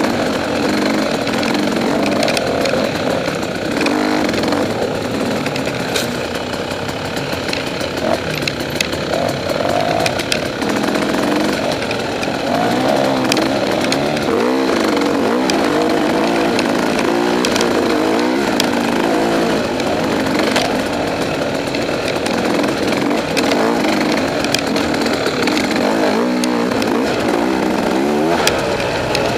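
KTM 300XC two-stroke dirt bike engine, heard from on board, revving up and dropping back again and again as it is ridden along rough single track. Knocks and rattles from the bike over the bumpy trail run through it.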